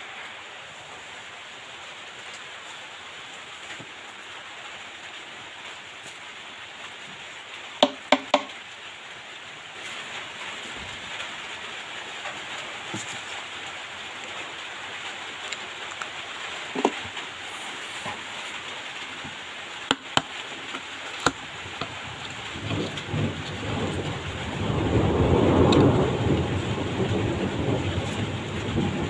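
Rustling of shredded debris and handling noise on the phone's microphone over a steady hiss. Three sharp clicks come about eight seconds in and a couple more around twenty seconds, then a louder, uneven rustling rumble builds over the last several seconds.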